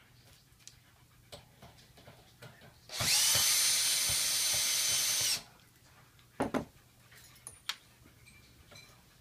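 Makita cordless drill/driver running for about two and a half seconds as it turns a screw in a small exhaust fan's wire guard; its motor whine comes up quickly, holds steady, then stops. A few light clicks of handling follow.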